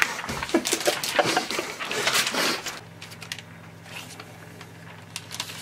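Paper rustling and light tapping as a printed photo is handled on a wooden desk, then a quieter stretch with a low steady hum from about three seconds in.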